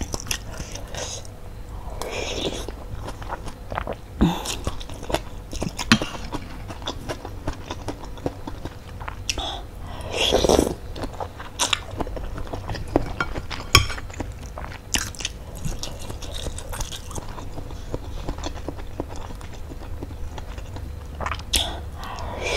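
Eating sounds: chewing and slurping noodles and broth from a bowl of spicy bakso meatball soup, with sharp clinks of a metal spoon and fork against the bowl. Longer slurps come about two seconds in, around ten seconds in, and near the end.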